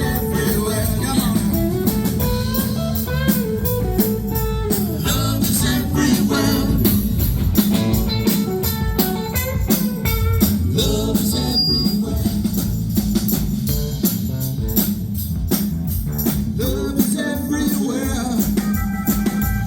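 Live blues-rock band playing an instrumental stretch: an electric guitar lead with gliding, bending notes over drums and bass.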